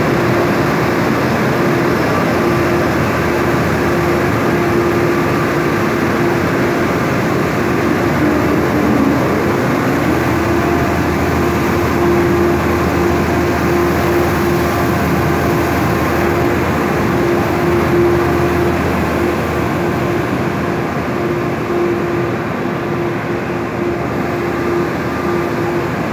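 Wheat cleaning and milling machinery running: a loud, steady mechanical din with a constant hum held at one pitch.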